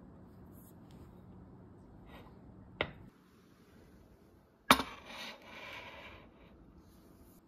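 A ceramic plate with a metal fork on it is set down on a table with a sharp clink about four and a half seconds in, followed by a brief clatter. A fainter click comes just before.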